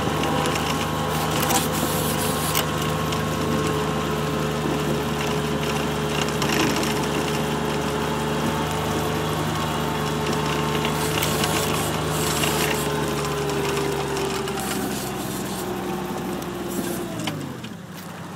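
Kubota RTV 1140 CPX utility vehicle's three-cylinder diesel engine running steadily as the machine drives on rubber tracks through snow. Near the end the engine note drops sharply and gets quieter as it slows down.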